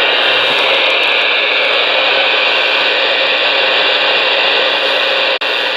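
Ranger RCI-2970N4 ten-meter radio receiving on 27.185 MHz, CB channel 19, its speaker giving out steady static hiss. The hiss cuts out for an instant about five seconds in.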